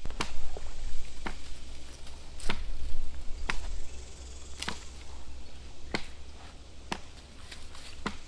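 Sharp, evenly spaced knocks of wood being struck, about one a second, over a low rumble that eases off about halfway through.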